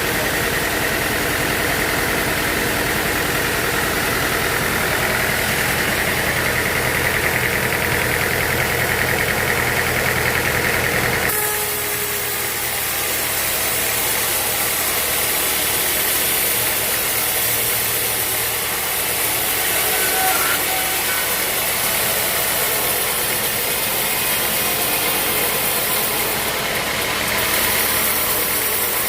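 Sawmill machinery running: a steady engine hum with a high whine. About eleven seconds in, the deep hum drops away suddenly, leaving a steady hiss.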